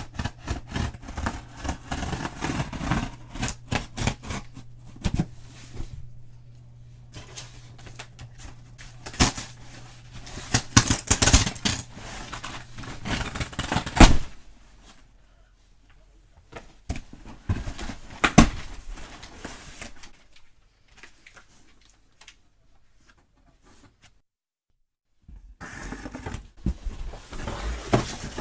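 Scissors snipping and cutting through packing tape and cardboard, with irregular scraping, clicking and rustling as a shipping box is worked open, in bursts with quieter gaps between.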